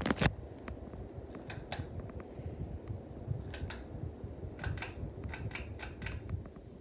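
Harbor Breeze Centreville ceiling fan running with a steady low hum, with scattered sharp clicks over it: a pair about a second and a half in, another pair near the middle, and a quick cluster toward the end.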